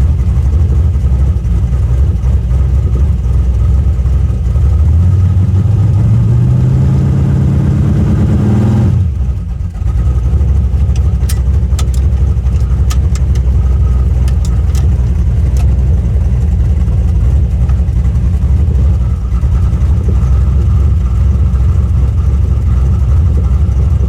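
1974 Chevrolet Nova with freshly swapped 3.42 rear gears and a 3000-stall converter accelerating: the engine note climbs steadily for about four seconds, the revs drop sharply about nine seconds in, and the engine then runs on steadily under way.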